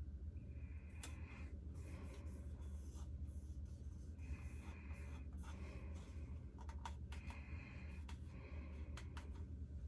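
Sticker labels being handled and rubbed onto small plastic lip gloss tubes: soft scratchy rubbing in short spells, with light clicks and taps from the tubes. A steady low hum runs underneath.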